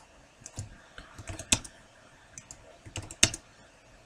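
Computer keyboard keys and mouse buttons clicking in an irregular scatter, the loudest strikes about a second and a half and three and a quarter seconds in.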